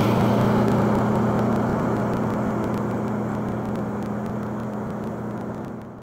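Military vehicle's engine running with a steady drone as it drives over the camera and away, fading out near the end.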